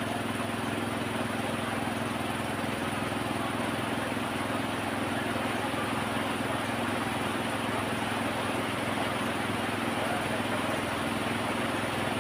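An engine running steadily at one speed, with the even hiss of rain falling around it.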